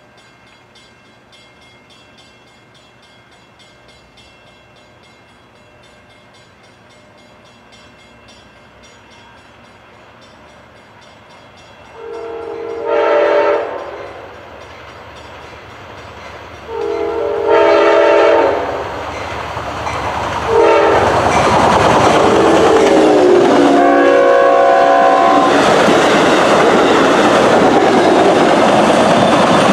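Amtrak Downeaster passenger train led by a GE P42DC locomotive approaching and passing at speed. About twelve seconds in, its air horn sounds the grade-crossing pattern: two long blasts, a short one and a final long one. The rumble and wheel clatter of the train build into a loud, steady rush as it goes by.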